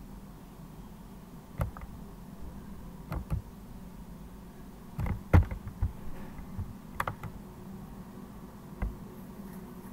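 A handful of irregular clicks from computer keys being pressed, bunched together near the middle, over a steady low hum.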